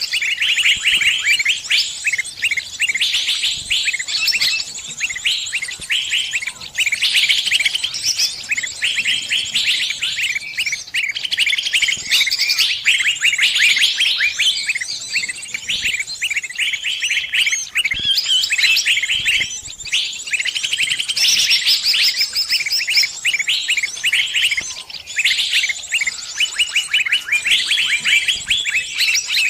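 Small birds chirping and twittering without pause: rapid, high-pitched chirps and trills that overlap densely.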